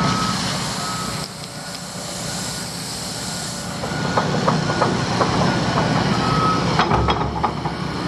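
Heavy construction machinery's backup alarm, a few single-pitch beeps about a second apart near the start and one more later, over a diesel engine running. In the second half, a series of sharp clanks and knocks.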